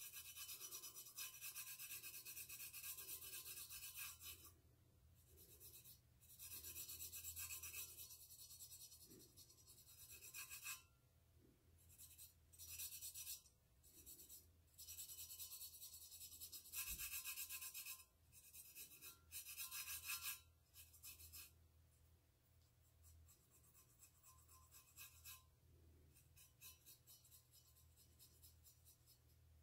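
Faint rubbing of fingertips spreading paint over the outside of a stainless steel tumbler, coming and going in stretches of a few seconds, over a low steady hum.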